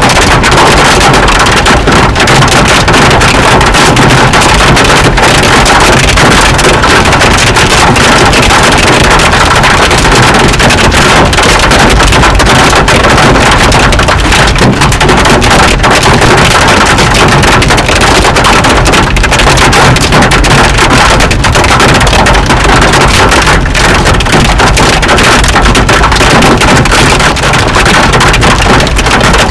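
Very loud, continuous wind buffeting the microphone, a steady rushing noise from a tornado's winds at close range.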